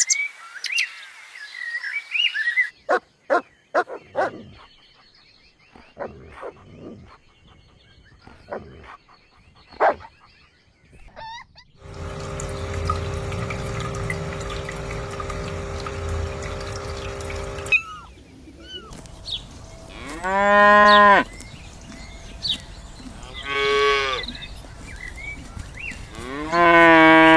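A mixed animal soundscape: brief bird chirps, a run of clicks and taps, a steady hum with a low rumble for about six seconds, then three loud, drawn-out moo-like animal calls in the last third.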